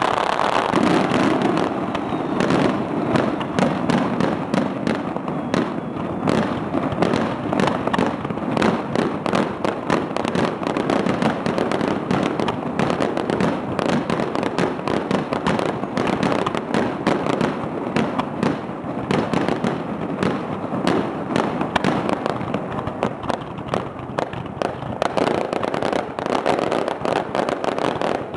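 Fireworks going off in a continuous barrage: dense, rapid crackling and popping with no pause.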